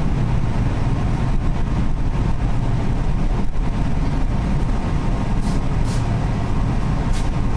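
Nishitetsu 8000-series electric train running, heard from inside the car: a steady low rumble with a faint steady tone above it. Four short hisses come near the end.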